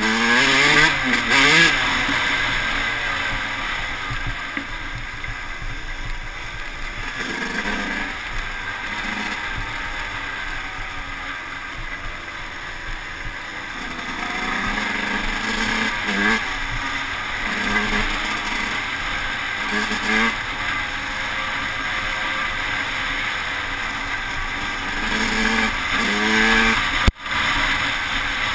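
Yamaha YZ125 two-stroke single-cylinder engine revving up and down through the gears while the bike is ridden, with wind noise over the helmet-camera microphone. There is a brief cut in the sound near the end.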